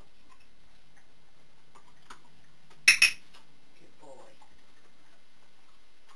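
A training clicker clicks once about three seconds in: a sharp double click as its metal tongue is pressed and released. In clicker training this marks the moment the dog does the wanted behaviour.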